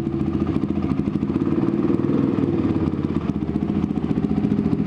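Honda CRF450X dirt bike's single-cylinder engine idling steadily with an even, rapid pulse as the bike is backed into a parking bay.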